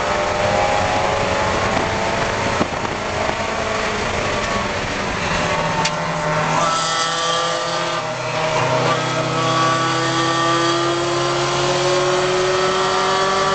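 Spec Miata race car's four-cylinder engine, heard from inside the car: the engine note falls steadily for about the first six seconds, dips briefly, then rises slowly under acceleration through the rest.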